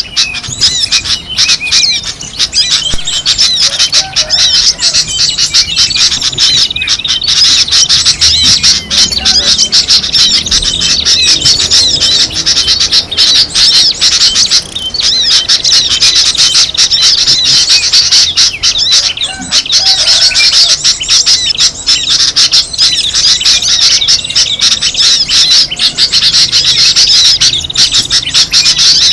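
A busy chorus of many small songbirds chirping and twittering rapidly and without pause. It is a bird-lure (pikat) recording, used to attract wild birds.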